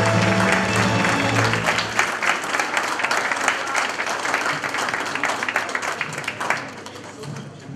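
Audience applauding, dense clapping by many hands; the music under it ends about two seconds in, and the applause fades away near the end.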